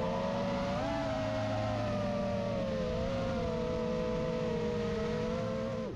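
FPV racing quadcopter's brushless motors whining steadily, the pitch rising and falling smoothly with the throttle, with a brief rise about a second in.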